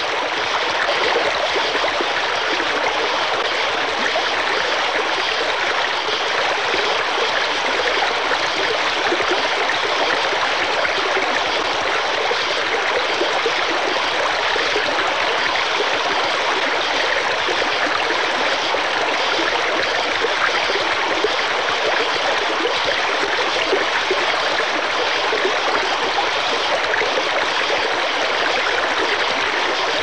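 Small waterfall: water pouring and splashing in a steady, unbroken rush that is bright and hissy, with little deep rumble.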